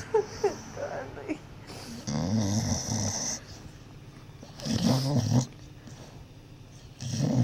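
A sleeping pit bull snoring: three loud, drawn-out snores about two and a half seconds apart, each a rattling low tone with a breathy hiss. Short, high squeaks come in the first second or so.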